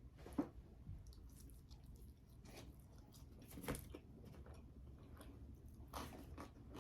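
A person chewing food quietly, with a few short crunchy clicks from the mouth: about half a second in, just before the four-second mark, and again near the end.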